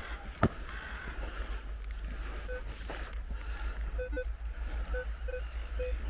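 Minelab Equinox 600 metal detector sounding short target beeps, a pair about two and a half seconds in and then a run of them from about four seconds on: signals from shallow trash targets, which turn out to be bottle caps. A sharp knock about half a second in, over a steady low rumble.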